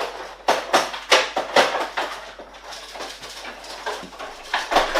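Kitchen cupboards and dishes banging and clattering, sharp knocks coming several a second, thinning out in the middle and picking up again near the end.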